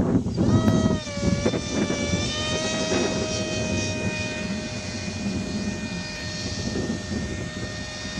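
Electric motor and propeller of a depron RC airplane whining in flight. The whine comes in about half a second in, falls in pitch, then holds steady over a low wind rumble.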